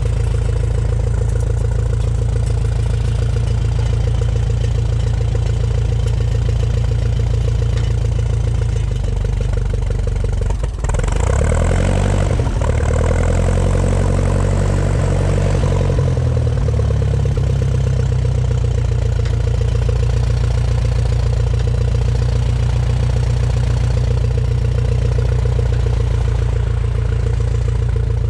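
A 1950 Ferguson TED20 tractor's four-cylinder engine, running on petrol, ticking over steadily. About eleven seconds in it dips briefly, then the revs rise and fall for several seconds as the tractor moves off, before it settles back into a steady run.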